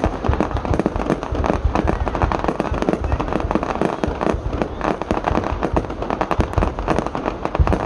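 Fireworks display going off in a dense, unbroken run of rapid bangs and crackling, with deep thuds mixed in.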